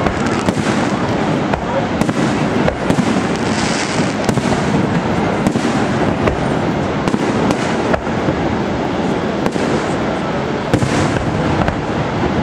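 Fireworks display: a dense, continuous run of bangs and crackling bursts over a steady rumble, with brighter crackling swells about four seconds in and near the end.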